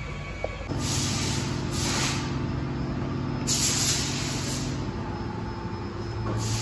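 Rupes machine polisher motor running steadily, starting about a second in, with three short hisses over it; the third, near the middle, is the loudest.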